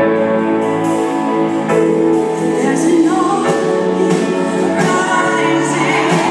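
Worship music from a band with keyboard and electric guitars holding sustained chords, with singing over it, growing stronger about halfway through.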